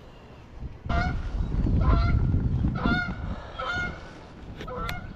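Canada geese flying overhead, honking in a series of calls about one a second, starting about a second in. A low rumble lies under the first few calls.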